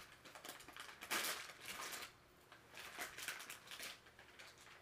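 Plastic overwrap of peritoneal dialysis solution bags crinkling and tearing as it is ripped open, in a run of short crackling bursts, loudest about a second in.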